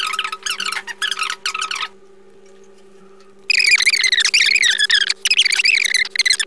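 Recorded speech from a test's audio player, sped up several times into fast, high-pitched chatter. It breaks off about two seconds in and starts again after about a second and a half, over a faint steady hum.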